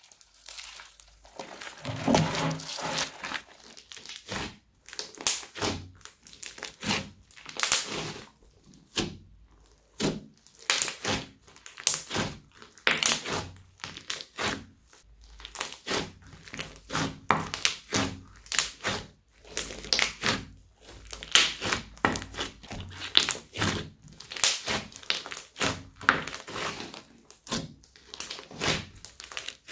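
Hands kneading, stretching and pressing a large mass of slime mixed with small foam beads, giving a steady run of sharp crackling pops and squishes, several a second at times.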